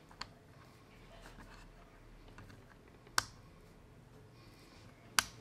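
A few sharp clicks over quiet room tone, the loudest about three seconds in and another near the end, with fainter ticks between.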